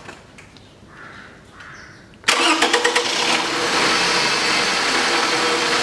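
A Toyota Caldina's two-litre 1AZ D-4 four-cylinder petrol engine is started about two seconds in. The starter cranks briefly with rapid pulses, the engine catches within a second and settles into a steady idle.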